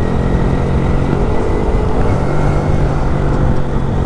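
A vehicle engine running at a steady cruising speed on the move, its low hum holding even, under a heavy low rumble of wind on the microphone.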